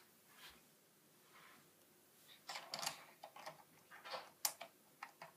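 Faint, scattered clicks and taps of plastic LEGO pieces being handled, starting about halfway through after a quiet stretch.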